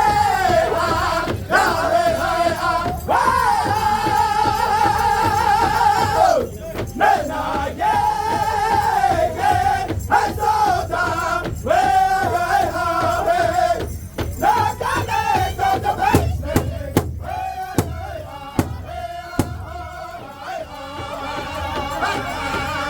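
Powwow drum group singing in high voices, with phrases that fall in pitch, over the steady beat of a big drum. Past the middle, several loud single drum strikes stand out.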